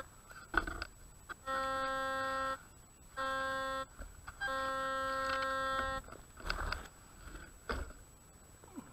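White's DFX metal detector sounding a low, buzzy tone three times, each about a second long, as the coil passes over a buried target, which the operator takes for another nail. A few short knocks fall between and after the tones.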